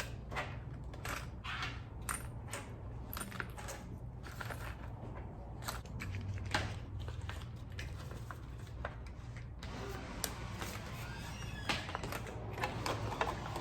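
Small sewing-machine accessories (bobbins, needles and little tools) clicking and rattling against each other as they are handled and put back into their pouch, in short irregular clicks, with rustling from about ten seconds in.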